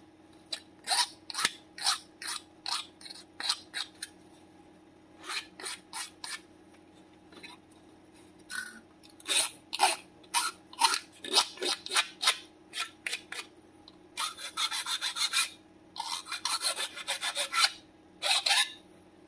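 Metal hand file rasping over a red 3D-printed plastic part, a rough filing done in short back-and-forth strokes about two a second, with brief pauses. In the last few seconds the strokes come faster and run almost together.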